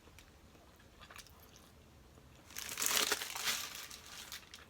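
Paper wrapper of a McDonald's sausage, egg and cheese McGriddles sandwich crinkling as it is handled, starting about halfway through and lasting about two seconds.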